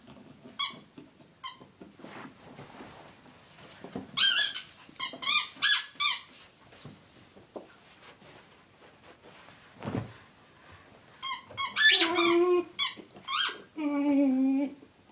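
A pink rubber squeaky dog toy squeaking in short high-pitched squeaks as a spaniel chews it: two single squeaks in the first two seconds, a quick run of about five around four seconds in, and another run near the end. Near the end the spaniel gives low, drawn-out woofs.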